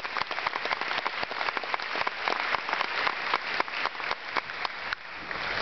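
Audience applauding, many hands clapping at once in a steady patter that drops away at the end.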